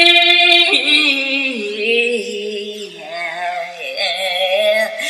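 A woman singing a wordless vocal line from a pop song. She holds a note, slides down in pitch through the middle, and rises again near the end.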